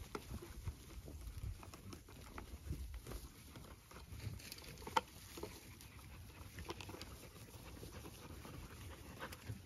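Faint, scattered light pattering and small clicks, with one sharper click about five seconds in.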